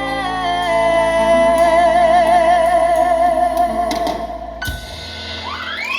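Closing bars of a band's ballad: a long held note with vibrato over sustained chords and bass. The chords stop about four and a half seconds in, and it is quieter after that.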